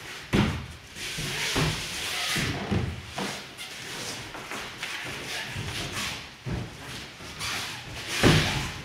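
Bodies and knees thudding onto foam puzzle mats and bare feet stepping, with the rustle of cotton gi, as an aikido partner is taken down and pinned in ikkyo. Several separate thuds, the loudest near the end.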